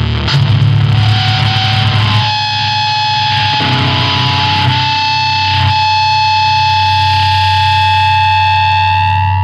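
Loud, distorted powerviolence band noise for about two seconds, then a held, ringing high amplifier-feedback tone over a steady low hum.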